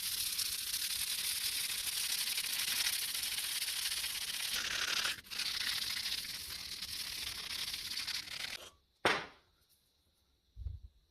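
Steady abrasive grinding or sanding with a power tool, a continuous hiss that breaks off briefly about halfway and stops about a second before a short sharp knock.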